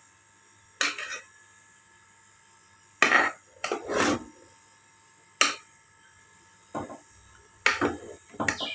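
A metal spoon scraping and knocking against an aluminium cooking pot while stirring chopped ridge gourd, about seven separate short scrapes spread a second or so apart.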